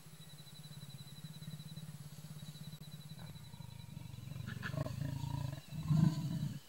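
A leopard growling low and continuously, swelling louder about halfway in and loudest near the end.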